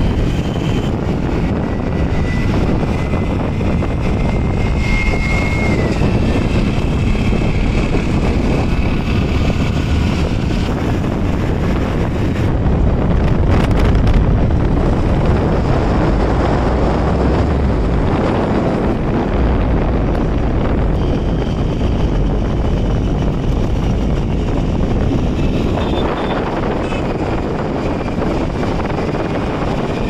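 Wind rumbling on the microphone over steady road and engine noise from a moving vehicle.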